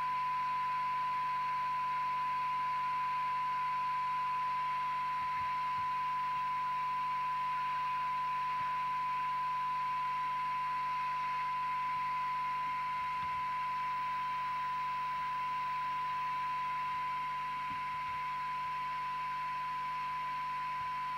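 Realistic TRC1001 CB radio's loudspeaker sounding a steady, single-pitched test tone over a hiss of receiver noise, received from a weak signal-generator signal while the receiver's transformer cores are tuned for maximum sensitivity.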